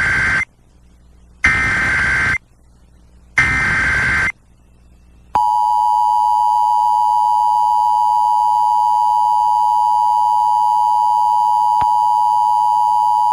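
Emergency Alert System header: the end of one SAME data burst and then two more, each about a second long with a second's pause between. About five seconds in, the steady two-tone EAS attention signal starts and holds unbroken. Together they mark the start of a Required Monthly Test of the alert system.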